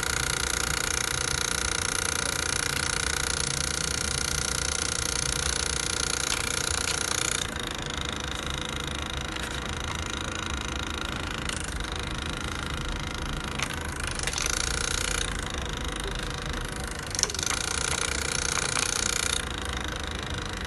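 Printer running as a sheet of paper feeds out of its slot: a steady mechanical whir whose higher part cuts out and comes back several times, with one sharp click a few seconds before the end.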